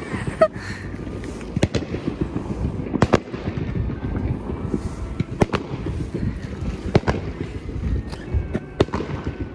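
Fireworks going off: a dense crackle throughout, with sharp loud bangs every second or two.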